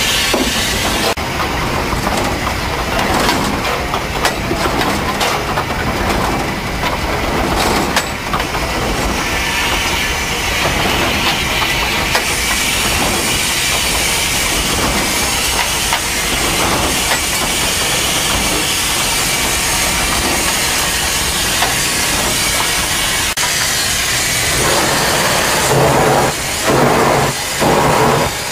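Steam locomotive cab noise: a steady hiss of steam over the running rumble of the engine. Near the end, strong regular exhaust beats come in, a little more than one a second.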